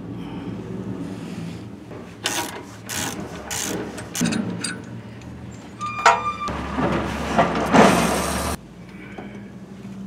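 Hand tools working a truck's steering tie rod end: a series of sharp metal clicks and knocks from a wrench, then a ringing metallic clink about six seconds in, followed by about two seconds of loud scraping and handling noise. A faint steady low hum runs underneath.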